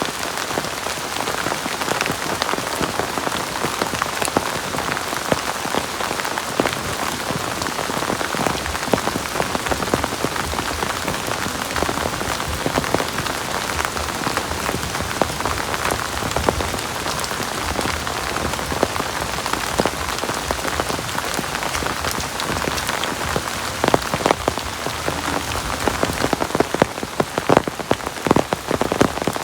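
Heavy rain falling steadily, the hiss of the downpour peppered with the ticks of individual drops striking a surface. The separate drop hits grow louder and more distinct in the last few seconds.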